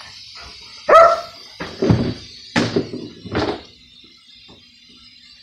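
Saint Bernard and cat play-fighting: a short, loud animal cry falling in pitch about a second in, then a few thumps and scuffles over the next two and a half seconds before it goes quiet.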